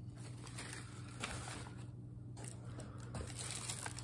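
Crumpled newspaper packing rustling and crinkling in short bursts as it is handled, over a faint steady low hum.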